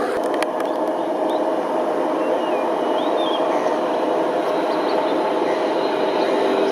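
Jet airliner engines heard from afar as a steady rushing hum with a faint steady tone, beginning to grow louder near the end as a Boeing 767-200 comes in low to land. A few faint bird chirps about two to three seconds in.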